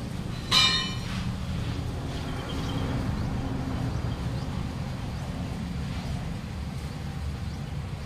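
One loud metal clang about half a second in, ringing briefly as metal strikes the steel truck wheel during tyre fitting. A steady low hum runs underneath.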